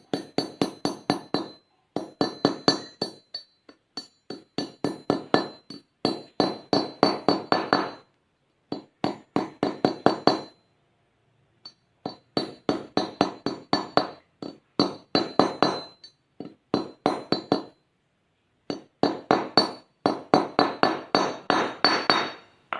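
Hammer striking metal in quick runs of about five blows a second, with short pauses between bursts; each blow rings. The blows tighten the cable joint of a homemade arc-welding electrode holder, since a tighter joint gives better contact and keeps the holder from heating.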